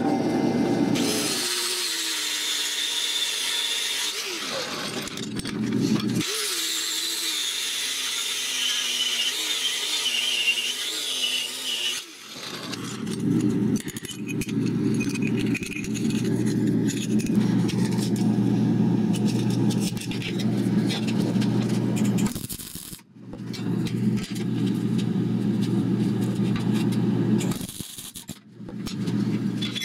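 Metalworking power tools in succession: a drill press boring into steel plate, then an angle grinder running, then a MIG welder arcing near the end.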